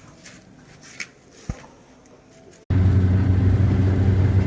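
Low background with two short clicks, then an abrupt cut about two and a half seconds in to a vehicle engine running steadily with a low, even hum.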